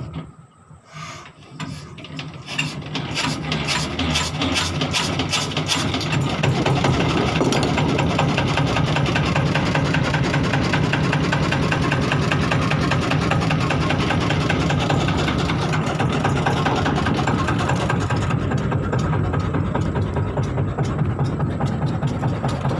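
A wooden boat's 36 hp diesel engine starting: it catches about a second in and picks up over the next few seconds. It then settles into a steady run with a rapid, even knocking beat.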